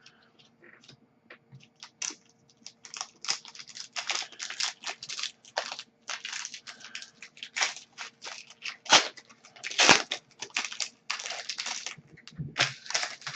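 Foil hockey card pack wrappers being torn open and crinkled by hand: a dense run of irregular crinkles and tears, with a couple of sharper ones about nine and ten seconds in.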